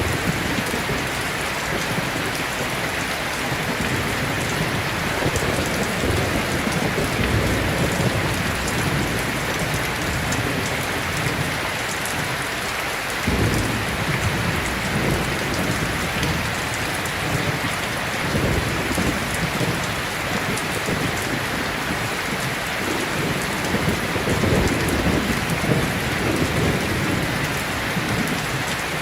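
Steady rain falling, with low rumbles that swell and fade irregularly underneath.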